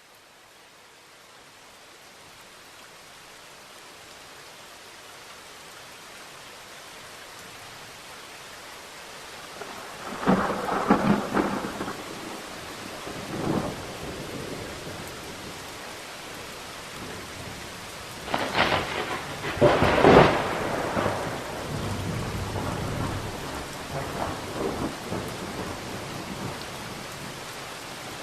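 Steady rain in a thunderstorm, fading in over the first several seconds. Thunder cracks about a third of the way in, again briefly a few seconds later, and loudest a little past the middle, followed by low rumbling that dies away under the rain.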